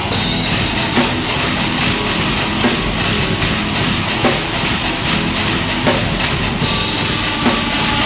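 Rock band playing live: electric guitars, bass and drum kit. The full band with cymbals comes in right at the start, with heavy accented hits about every one and a half seconds.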